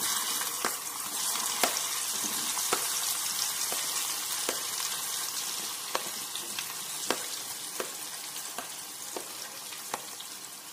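Boiled amla (Indian gooseberry) segments sizzling in hot oil in a pan as they are added, with scattered sharp clicks now and then. The sizzle slowly dies down.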